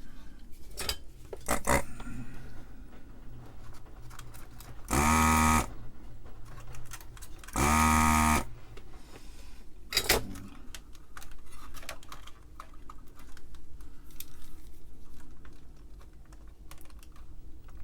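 Two short electric buzzes, about two and a half seconds apart, from a desoldering tool's vacuum pump sucking molten solder off keyboard pins. Light clicks and taps run through it, from the tool and the keyboard board being handled, with a sharper click just after the second buzz.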